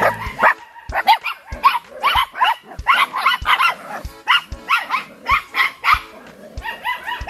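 Icelandic Sheepdog puppies barking and yipping in quick succession, several short high-pitched barks a second. Background music with a steady beat runs underneath.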